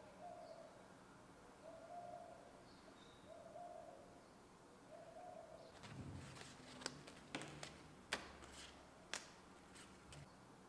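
Thin plastic latte-art stencil sheets being handled and flexed, rustling with several sharp clicks in the second half. Before that, four faint low hoots come at even intervals.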